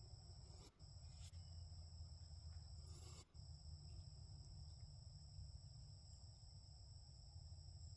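Faint insects trilling steadily at two high pitches, over a low rumble; the trilling breaks off twice, very briefly.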